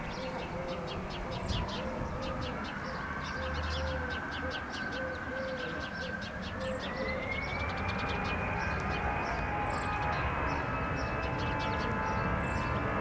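Airbus A319 jet engines whining, rising in pitch about six seconds in and then holding at the higher pitch as they spool up for takeoff. Small birds chirp rapidly throughout.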